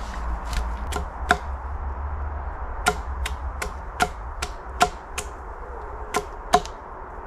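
A run of about a dozen sharp knocks on wood at uneven spacing, each with a short hollow ring, like a log or stake being tapped into place on a wooden shelter frame. A steady low rumble runs underneath.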